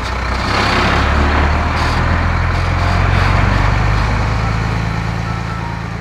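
Truck engine sound effect: a steady low engine rumble with a broad hiss over it, easing off near the end.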